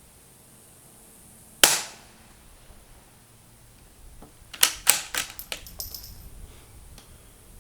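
Suppressed .22 LR Ruger Precision Rimfire bolt-action rifle firing a single sharp shot about a second and a half in. A few seconds later comes a quick run of metallic clicks as the bolt is worked to eject the case and chamber the next round.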